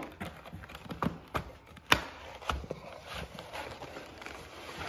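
Cardboard shipping box and plastic air-cushion packaging being handled and pulled at, making a run of irregular knocks and scrapes, the loudest knock about two seconds in.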